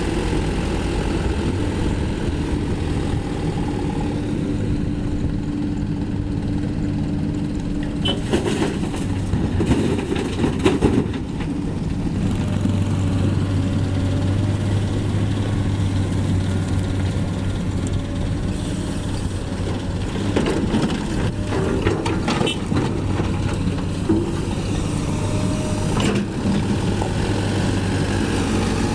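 Diesel engines of a Komatsu PC200 excavator and a Mitsubishi Fuso Canter dump truck running steadily while the excavator loads the truck, with bursts of knocking and clatter about eight to eleven seconds in and again later on.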